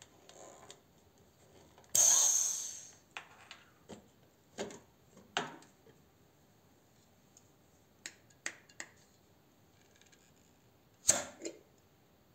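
Air hissing into a vacuum canister as its valve is opened, which presses the screw-top jar's lid down tight. It is a loud hiss about two seconds in, fading over about a second. Then come light clicks and knocks of glass and plastic as the jar is taken out and handled, and a sharp click near the end.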